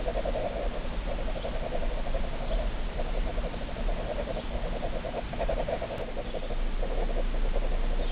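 Ballpoint pen scribbling on sketchbook paper: a fast, scratchy back-and-forth scrawl that comes in runs of a second or two, broken by short pauses.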